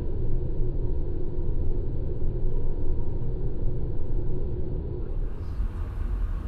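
Steady low rumble of road and engine noise inside a moving car's cabin on a wet freeway, picked up by a dashcam.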